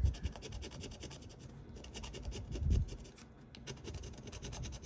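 A scratch-off lottery ticket being scratched: many quick, short strokes rubbing off the coating, with brief pauses between bursts.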